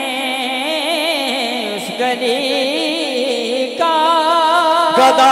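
A man singing a naat line into a microphone, his voice wavering through melismatic ornaments and then holding one long steady note about four seconds in. A new, louder phrase begins just at the end.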